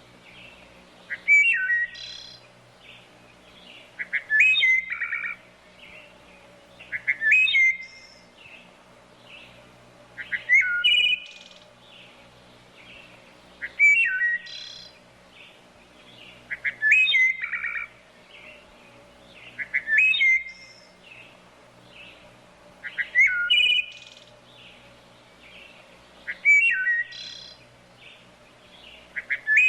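A songbird singing the same short phrase over and over, about once every three seconds. Each phrase is a quick run of notes followed by a slurred whistle.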